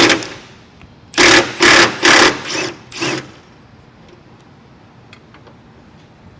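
A cordless power tool run in short trigger bursts, one at the very start and then five about half a second apart between one and three seconds in, backing out the 13 mm bolts that hold the hood to its hinges.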